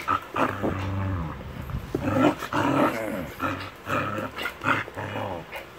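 Two small dogs scuffling at close range, growling and snarling at each other again and again, each growl short and some sliding in pitch.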